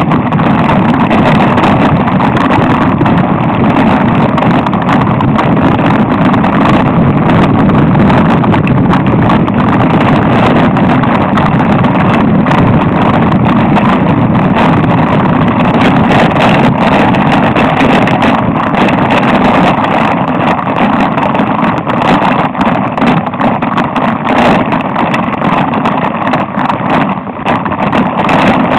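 Mountain bike riding a rough dirt trail, heard from a camera on board: a loud, constant rumble of tyres on loose dirt and stones with a rapid clatter of small knocks and rattles from the bumps.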